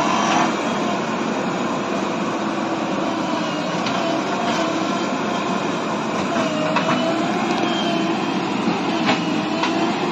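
JCB backhoe loader's diesel engine running steadily under load while digging, with a wavering hydraulic whine and a few sharp knocks from the bucket and arm.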